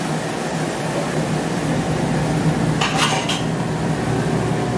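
A metal utensil clattering briefly against dishes about three seconds in, a few quick knocks, over the steady machine hum of a commercial kitchen.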